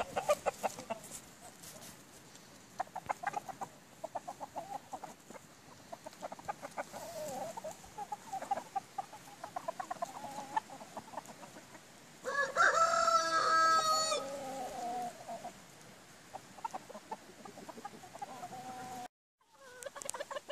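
A flock of partridge-coloured Italian (Leghorn-type) chickens clucking, with one rooster crowing loudly about twelve seconds in. The sound cuts out briefly near the end.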